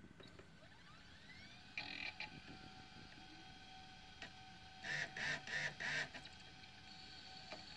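Toshiba Satellite Pro 420CDT laptop starting up: a faint rising whine as a drive spins up, a short burst of drive noise, then a louder run of four quick mechanical pulses past halfway, typical of disk drives seeking during boot, over a steady faint whine.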